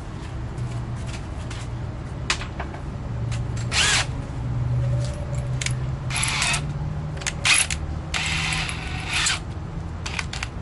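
Power drill running in several short bursts, drilling and screwing into the birch plywood of a cabinet carcass. Under it runs a low motor hum that shifts in pitch.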